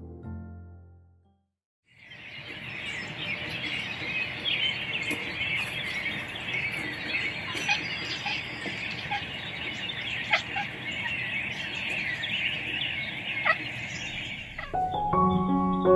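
Piano music fades out at the start. After a moment of silence, many songbirds chirp and sing together over a steady hiss, until piano music comes back near the end.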